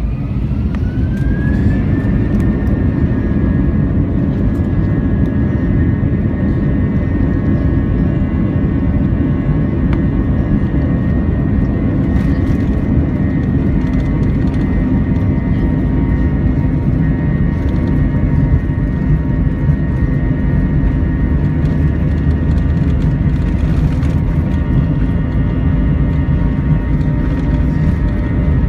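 A loud, steady engine roar with a high whine that rises over the first two seconds and then holds steady.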